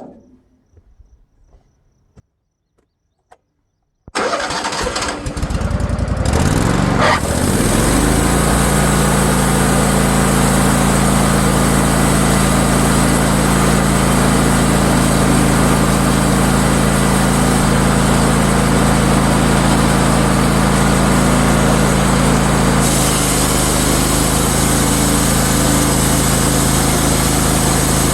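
Wood-Mizer sawmill engine starting about four seconds in, winding up over a few seconds and then running steadily and loud. Its tone shifts slightly near the end.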